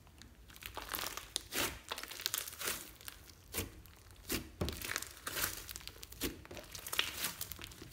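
Fluffy purple slime being stretched, folded and pressed by hand, giving off irregular crackling and sticky popping sounds as its air pockets burst. The crackling starts about half a second in.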